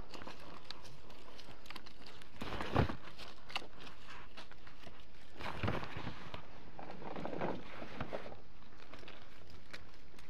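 Leaves and branches of an apple tree rustling and being handled as apples are picked by hand, in irregular bursts, with a louder thump nearly three seconds in.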